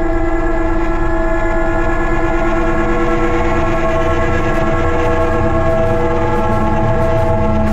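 Background music of sustained chords, several notes held for seconds at a time, changing slowly over a low rumbling bed.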